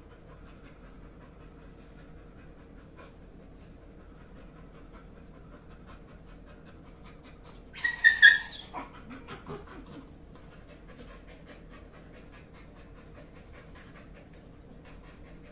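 Yellow Labrador retriever panting softly. About eight seconds in it gives one short, loud, high-pitched squeal, followed by a few fainter low grumbles.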